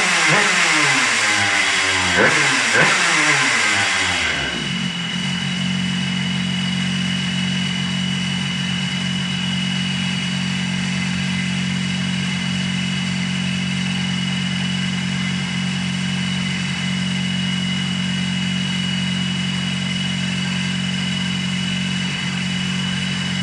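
Suzuki DS80's single-cylinder two-stroke engine on a dynamometer, its revs falling off after a full-throttle run over the first four seconds or so. It then settles into a steady low hum with a thin high whine above it.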